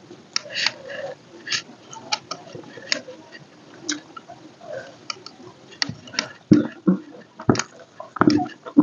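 Close-up mukbang eating sounds: irregular wet mouth clicks and crisp crunches of chewing. A few heavier knocks come in the second half.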